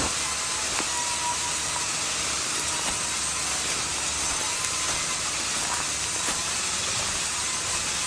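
Sawmill band saws running and cutting planks: a steady hissing noise with a few faint clicks and knocks.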